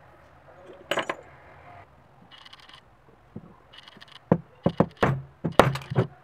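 Hammer striking a metal setting tool to set a fastener in a leather strap: a quick run of about eight sharp metallic taps in the last two seconds, after a couple of lighter clicks of handling about a second in.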